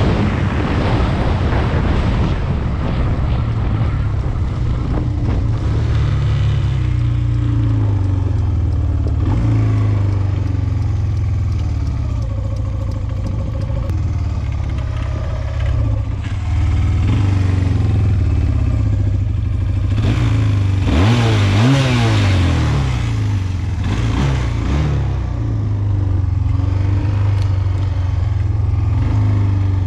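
SMC Barossa 250 quad's engine running while the quad drives along a dirt track, with wind on the microphone near the start. About twenty seconds in, the engine revs up and falls back a few times before settling again.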